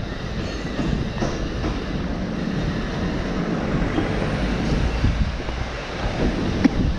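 Street noise dominated by a steady low rumble of a passing vehicle, with a few scattered knocks and clatter.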